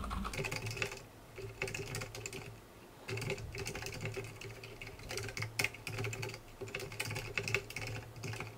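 Typing on a computer keyboard: quick, irregular runs of keystroke clicks. The typing thins out about a second in and picks up again about three seconds in.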